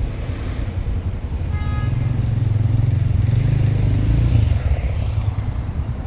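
Passing road traffic: a steady rumble of engines and tyres that swells about halfway through as a vehicle goes close by, then eases. A brief pitched tone sounds about one and a half seconds in.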